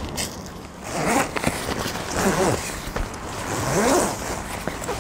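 Zipper on a Carp Pro Diamond tent being pulled along in about three long strokes, each rising and falling in pitch, as the porch section is zipped back onto the tent.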